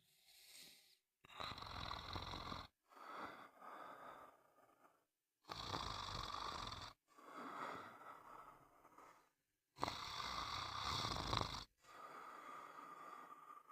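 Snoring: three slow breath cycles, each a louder rasping snore followed by a quieter, longer breath, with short silent pauses between.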